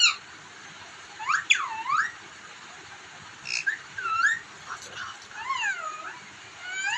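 Pet parrot making whistled, swooping calls: several clear notes that rise and fall in pitch, in short groups a second or two apart.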